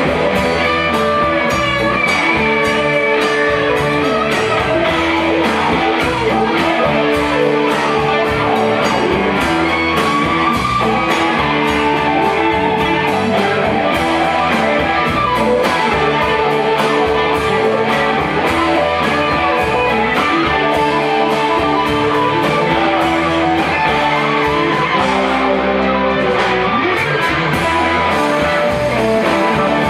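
Live rock band playing loudly: several electric guitars over bass, drums and keyboard, with a steady drum beat.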